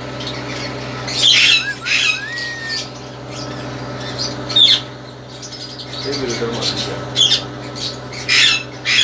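African grey parrot giving a run of short, harsh squawks, about six in all, with a brief gliding whistle about two seconds in. A steady low hum runs underneath.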